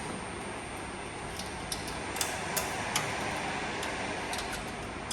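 Quick-release latches on a tablet counter's front tray being unfastened: a string of light, sharp clicks spaced irregularly, several within a couple of seconds and a few more later.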